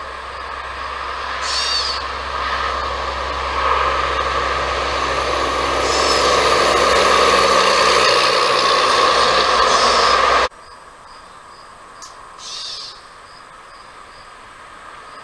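A steady drone like a distant engine grows gradually louder, then cuts off suddenly about two-thirds of the way through. Short high bird calls sound over it a few times.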